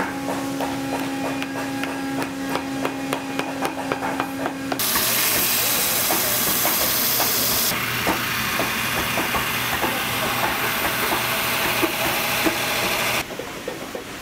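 Workshop machine noise: a steady hum with quick tapping, then a loud steady hiss that starts suddenly about five seconds in and stops suddenly near the end.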